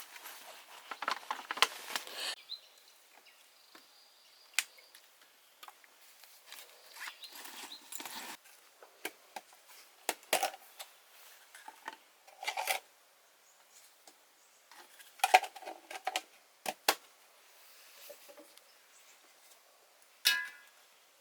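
Irregular rustling, light taps and clicks, as of small objects being handled, over a faint steady hiss.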